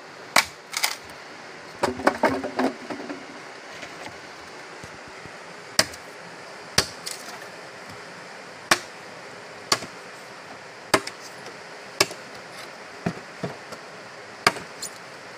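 A machete chopping at the end of a wooden pole: sharp cracks of the blade biting into the wood, a quick flurry at first and then about one a second, some in quick pairs, over the steady rush of river water.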